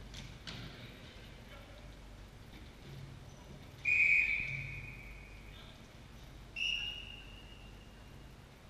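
Sports official's whistle blown twice: a loud, longer blast about four seconds in and a shorter, weaker one near seven seconds, each ringing on in a large echoing sports hall.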